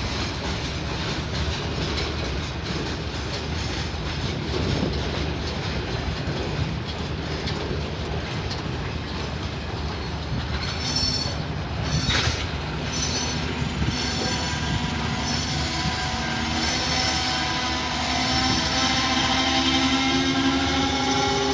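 Passenger train cars rolling past with a steady rumble of wheels on rail. About two-thirds of the way through, the wheels start squealing in several slowly sliding high tones, which grow louder to the end.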